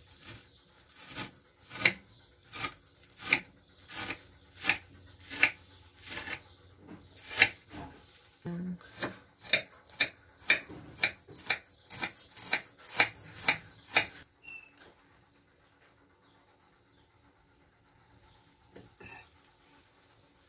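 A knife sawing through a tray of crisp baked kadayıf, the dry shredded-pastry strands crunching and rasping with each stroke, about one and a half strokes a second. The cutting stops about two-thirds of the way through.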